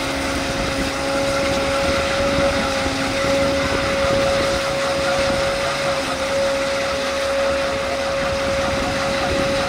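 The engine of a tracked lifeboat launch and recovery tractor running steadily, with a constant high whine over the engine noise.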